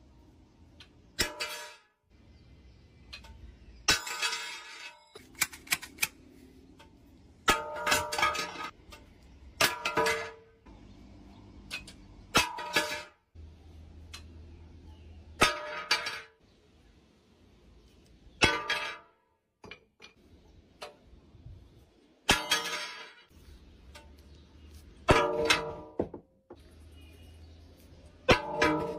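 Metal tools, a rod and then a hammer, striking a glass tabletop about a dozen times. Each blow gives a sharp clang that rings briefly, and the glass does not break.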